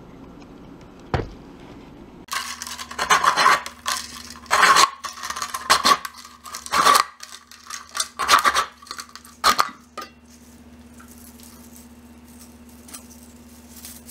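Plastic bottle being worked through a homemade bottle-cap cordage cutter, its knife blade slicing the bottle wall into a strip: about seven loud bursts of plastic noise over some eight seconds, then it stops.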